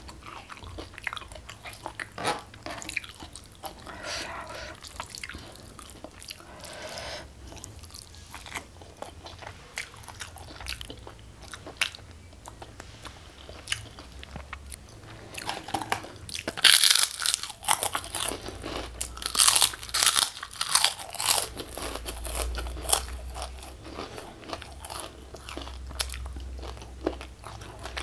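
Close-miked eating sounds: wet chewing with many small clicks, and a run of loud crunches a little past the middle.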